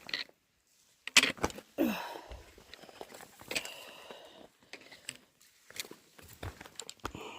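Hiking footsteps scuffing and knocking on bare rock slabs during a steep descent, with close rubbing and clicking from the handheld phone. A short falling vocal sound comes about two seconds in.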